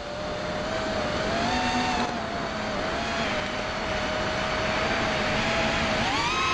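FPV quadcopter's brushless motors and propellers whining in flight, the pitch wavering a little with throttle, then climbing sharply near the end as the throttle is pushed up. A rush of air noise sits under the whine.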